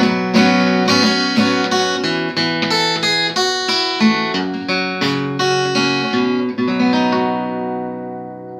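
Guitar outro: chords strummed about twice a second, then a final chord left to ring and fade away near the end.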